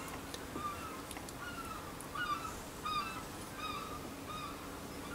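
A bird chirping faintly and repeatedly, short falling calls about every half second, with a few faint ticks.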